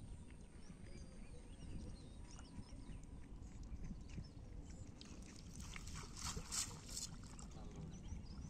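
Quiet outdoor ambience: a steady low rumble with faint bird chirps, and a brief crackling rustle from about five and a half to seven seconds in.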